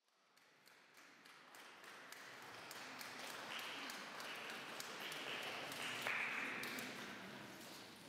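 Church interior ambience fading in from silence: scattered taps and knocks with a few short ringing tones around the middle, before any singing starts.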